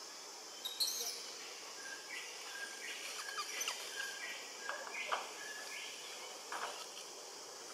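Wild birds calling in short whistled notes and a few sharp chirps over a steady high insect hiss.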